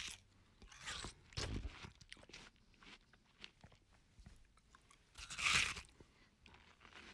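A person biting into and chewing watermelon: several crunching bites, the loudest about five and a half seconds in, with quieter chewing crunches between.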